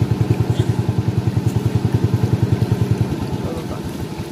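Small boat's engine chugging with a rapid, even beat, then slowing and dying away about three seconds in as it is throttled back or cut.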